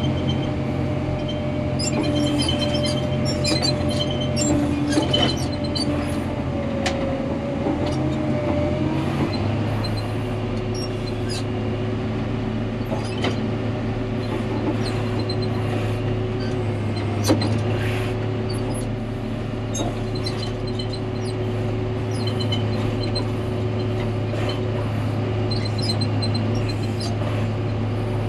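Diesel engine of a John Deere 670G motor grader running steadily under work, its pitch dropping to a lower steady speed about nine seconds in. Scattered short knocks and rattles sound over the engine.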